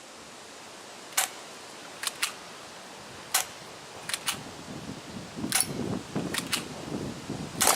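Crosman Stinger P311 spring airsoft pistol being cocked and fired repeatedly at a light bulb: about ten sharp snapping clicks, several in quick pairs, the loudest near the end. Wind and rustling in the background.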